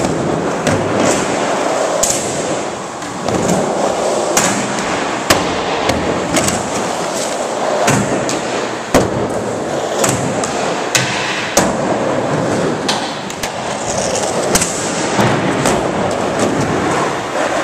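Skateboard wheels rolling over wooden ramps, broken by many sharp, irregular clacks of boards popping, landing and hitting ledges and rails.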